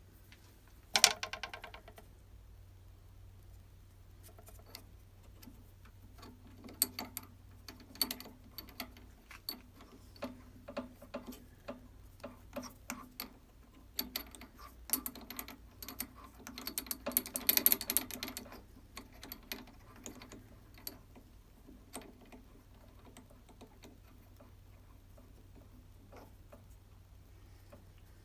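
Scattered clicks and rattles of tools and parts being handled at a workbench. A short, loud rattle comes about a second in, and a denser run of clicking follows between about fifteen and eighteen seconds in, over a faint steady hum.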